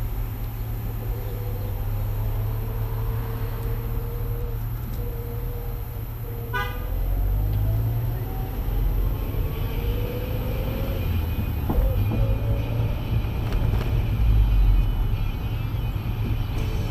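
Suzuki Cappuccino's 657cc turbocharged three-cylinder running with road rumble, heard through the open-top cabin; the engine note rises for a few seconds as it accelerates. A short car-horn toot sounds about six and a half seconds in, and a thin high whine runs through the second half.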